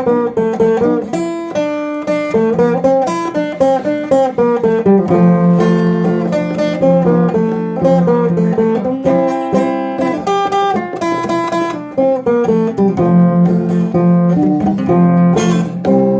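Instrumental break of a Brazilian sertanejo/gaúcho song: an acoustic guitar plays a melodic run of quickly plucked notes over strummed chords.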